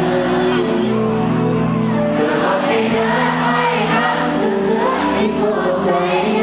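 Live band music with singing over long held chords, in a large hall.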